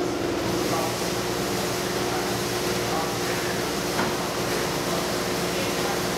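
Steady hum of food-processing machinery, holding several constant tones, with a single short knock about four seconds in.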